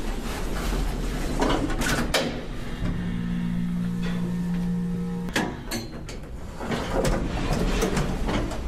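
Street ambience with traffic noise and scattered clicks and knocks. A steady low hum sets in about three seconds in and stops abruptly with a sharp knock a little after five seconds.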